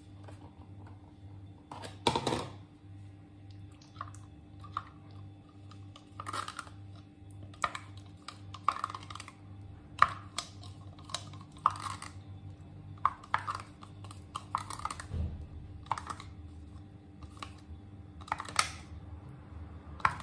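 Spoon clicking and scraping against a plastic yogurt tub and a glass mixing bowl as yogurt is scooped in: irregular short clicks and knocks, the loudest about two seconds in and about ten seconds in. A faint low hum runs underneath.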